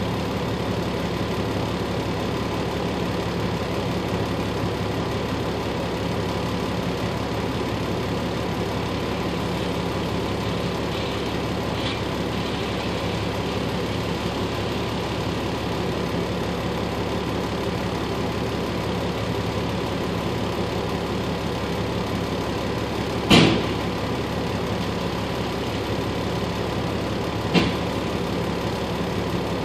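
Vehicle engine idling steadily, with one loud sharp bang a little over three-quarters of the way through and a smaller knock a few seconds later.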